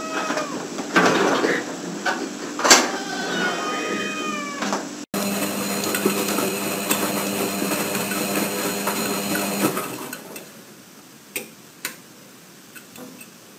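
Cats meowing, several short calls that rise and fall in pitch during the first few seconds. Then a steady hum made of several held tones lasts about five seconds and stops, leaving a few faint clicks.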